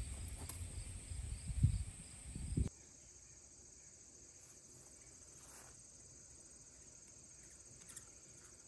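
Faint, steady, high-pitched trilling of an insect chorus. For the first few seconds it lies under a low rumble and a couple of soft thumps, which stop abruptly.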